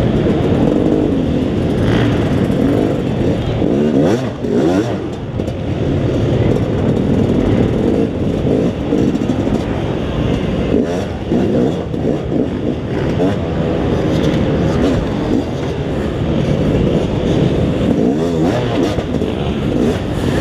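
Yamaha YZ250X two-stroke single-cylinder dirt bike engine heard from on the bike, revving up and dropping back over and over as it is ridden slowly over logs and rocks.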